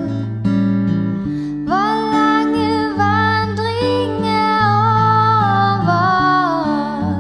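Gibson acoustic guitar playing chords while a woman sings a slow melody in Danish; the voice comes in just under two seconds in and holds long notes over the guitar.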